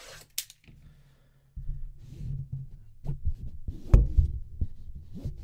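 Handling noise from a shrink-wrapped trading-card hobby box on a tabletop: a low rumble with irregular dull thumps, the loudest about four seconds in.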